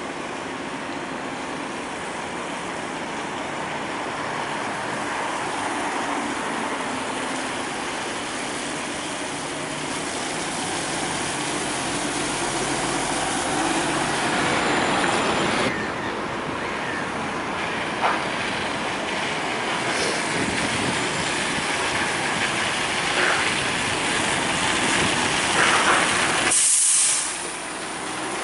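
Single-deck buses pulling through a bus station and passing close: engines running and tyres hissing on the wet road, with a few short sharp air hisses.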